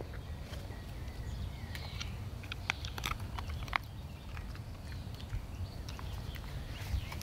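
Scattered light clicks and rustling as the straps and buckles of a dog life vest are adjusted on a small dog, over a steady low wind rumble.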